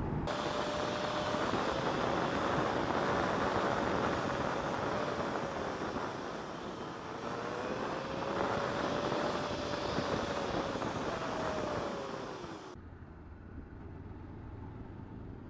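Motorcycle engine and road noise played fast-forwarded: a raised, wavering engine whine over a loud rush. About 13 seconds in it cuts off abruptly to quieter riding noise at normal speed.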